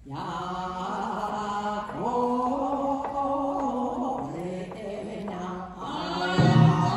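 A single voice chanting a taue-odori rice-planting dance song in long, drawn-out notes, starting suddenly after a pause. A deep drum beat comes in near the end.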